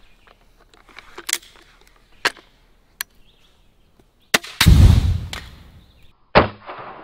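Mechanical clicks of a magazine-fed EK Archery Cobra Adder crossbow being handled and cocked, then the snap of the shot about four seconds in. A moment later comes a loud, deep boom as the struck target downrange explodes, fading over a second or so, and another loud bang near the end.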